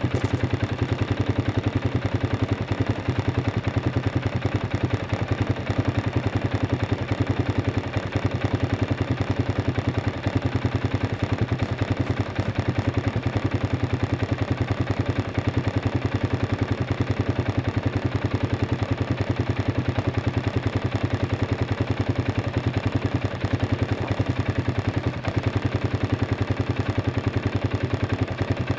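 An engine running steadily at an even speed, with rapid, regular firing pulses and no revving.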